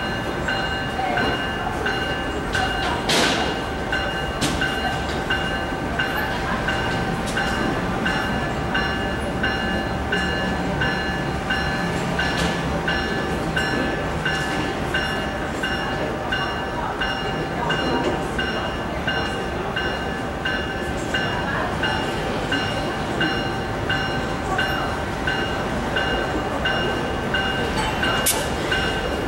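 Diesel-electric freight locomotives running as they move slowly through a yard: a steady engine rumble, a few sharp clanks from the wheels on the rails, and a high ringing tone that pulses about one and a half times a second.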